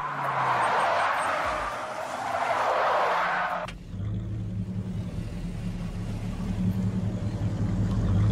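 Tyres skidding in a rushing screech for about three and a half seconds, cut off abruptly. Then the battered Dodge Charger Daytona replica's engine rumbles steadily as it rolls slowly.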